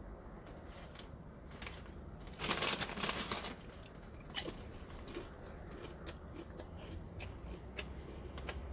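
A person biting and chewing a crunchy seasoned chip, with a loud crunch about two and a half seconds in followed by many small crackling chews.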